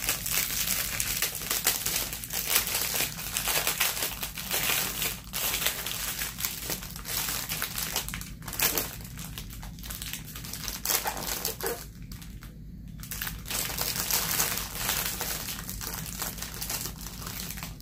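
Clear plastic bags of diamond painting drills crinkling as they are handled, one of them split open. The crinkling is continuous and irregular, with a short lull about twelve seconds in.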